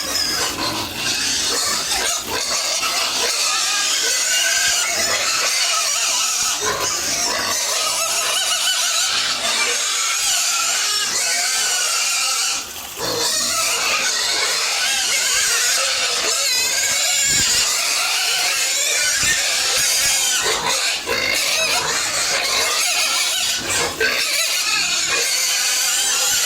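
Pigs squealing continuously, with a brief lull about thirteen seconds in.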